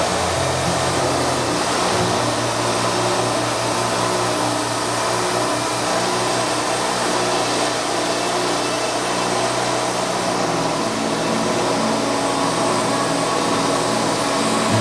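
Band sawmill running steadily through a cut, under background music with a moving bass line.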